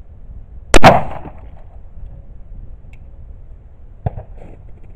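A single Glock 9mm pistol shot about a second in: a sharp double crack with a short ring-out, as the round strikes an aerosol spray-paint can set as the target. A few faint light knocks follow near the end.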